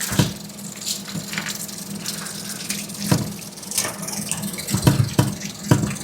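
Water running from a kitchen tap into the sink while dishes are rinsed, with scattered clinks and knocks of dishes and utensils against each other and the sink. A steady low hum sits underneath.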